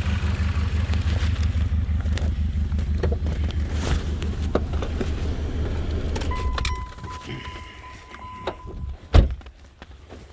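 Car engine idling rough on a dead ignition coil, with keys jangling, then shutting off about two-thirds of the way in. A steady electronic tone sounds for about two seconds as it stops, and a single loud thump follows near the end.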